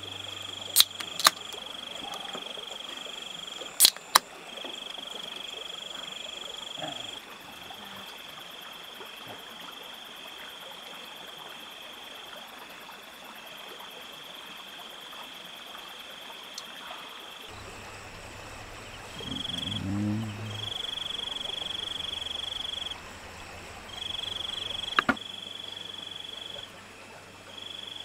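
A high, steady trilling animal call that switches on and off in stretches of a few seconds. Sharp clicks come a few times near the start and once about 25 seconds in, and a low hum joins partway through.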